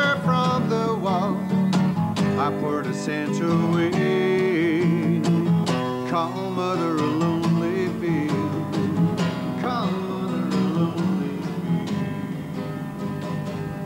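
Steel-string acoustic guitar strummed, with a man singing a wordless, wavering line over it.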